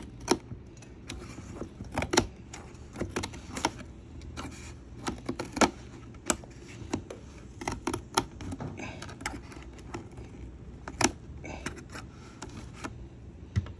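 Irregular sharp clicks, taps and knocks of a plastic toy track bucket and its packaging being handled and worked open, over a steady low hum.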